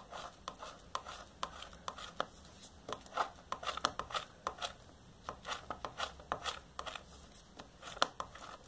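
Stiff card scraping and ticking over an inked acetate drypoint plate in short, irregular strokes, several a second, pushing the ink down into the engraved scratches.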